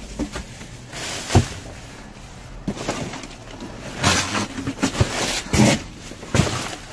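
Rustling of bags and produce being handled and moved about in a dumpster, with scattered knocks. There is a sharp knock about a second and a half in, and louder rustling with more knocks from about four seconds in.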